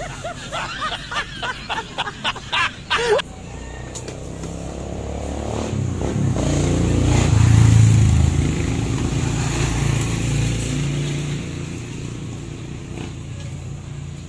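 A motor vehicle passes on the road, its low engine rumble swelling to a peak about eight seconds in and then fading. Before it, over the first three seconds, an animal gives a quick run of about ten short pitched calls that speed up and end on a louder one.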